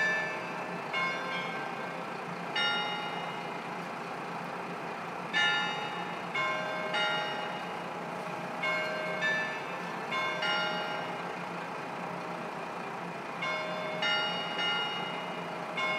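Bell-like chime strikes ringing out at uneven intervals, some in quick pairs, each tone fading after it is struck. Under them is the steady hum of the KiHa 54 diesel railcar's engine.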